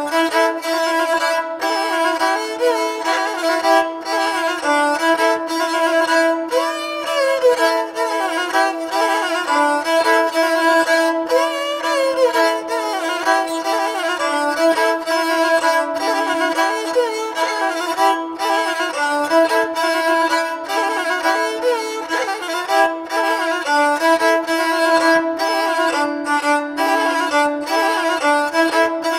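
Lahuta (lauri), the Albanian one-stringed bowed fiddle, playing an instrumental men's dance melody (valle). A steady low note runs under ornamented runs, with a couple of sliding phrases.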